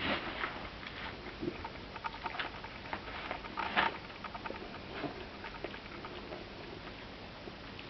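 Dog making small irregular clicking and tapping sounds, with one short louder burst about four seconds in.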